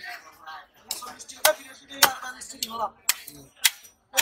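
Heavy fish-cutting knife striking through a large threadfin salmon onto a wooden log chopping block: a run of sharp knocks about twice a second, starting about a second in.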